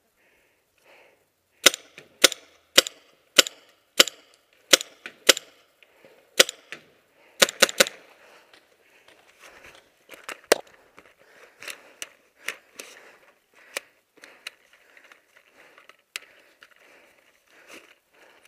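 Paintball markers firing: a string of sharp single shots about every half second, a quick cluster near the middle, then fainter, more scattered shots.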